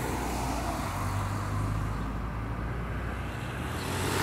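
Street traffic: a steady low engine hum, with an approaching car's engine and tyre noise rising near the end.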